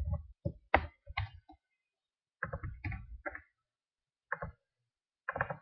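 Computer keyboard keystrokes and mouse clicks: scattered separate clicks, with a quicker run of keystrokes about two and a half seconds in.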